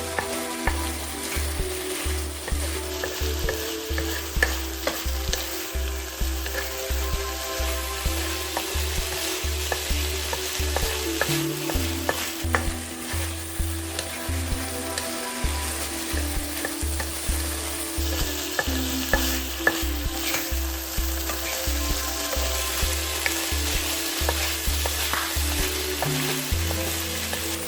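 Food sizzling in a hot frying pan while it is stirred, with occasional clicks of the utensil against the pan. Background music with a steady beat plays underneath.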